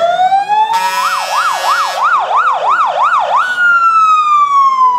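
An emergency vehicle's siren sounded briefly. It gives a rising wail, then a fast yelp of about three sweeps a second with a horn blast over its start, then a long falling wail that cuts off.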